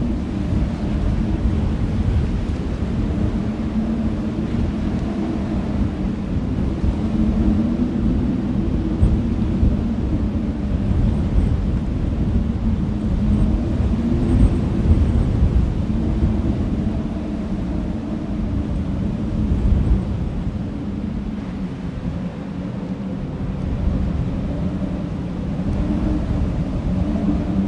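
Wind gusting across an open field, buffeting the microphone with a heavy low rumble that swells and eases, with a wavering hum over it.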